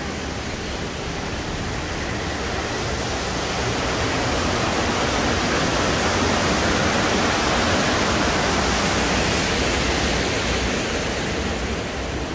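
Waterfall: a steady rush of falling water, swelling louder through the middle and easing off near the end.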